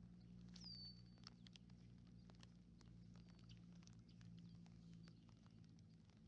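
Near silence: faint scattered light ticks over a low steady hum, with one short high chirp about half a second in that falls in pitch and then holds briefly.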